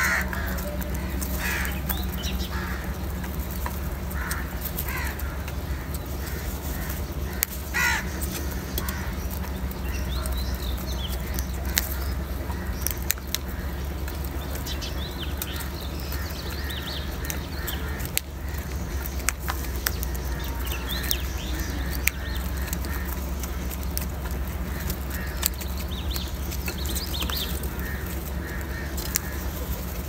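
Crows cawing: a run of short, harsh calls in the first eight seconds, then fainter, higher calls now and then. Scattered sharp clicks and a steady low rumble run underneath.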